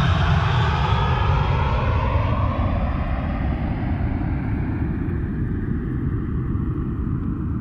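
Twin-engine jet airliner at take-off thrust, lifting off and climbing away. The engine roar holds steady in the low end while its hiss dies away and its tones slide down in pitch as it recedes.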